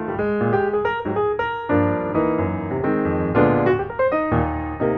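Background piano music: a run of quick notes over low chords at an even level.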